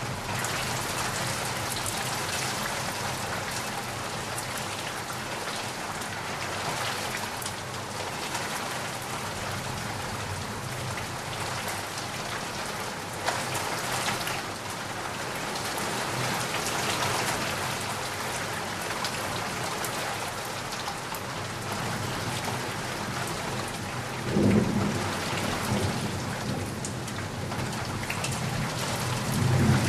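Heavy rain falling steadily. Low thunder rumbles in about three-quarters of the way through and again near the end.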